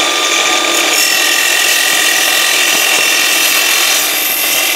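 Festool Kapex KS 60 mitre saw with an aluminium-cutting blade running and cutting through aluminium angle: a loud, steady hiss of the blade in the metal with a high ringing tone over it.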